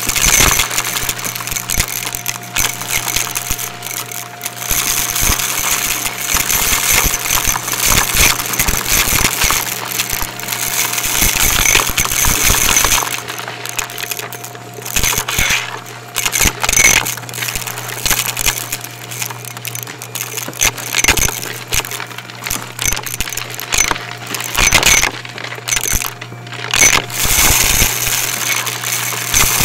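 Shark Navigator upright vacuum running with a steady motor hum while it sucks up dry debris, which crunches and rattles through it in a dense stream of clicks, with a few short lulls. Close-miked on the vacuum and at the floor.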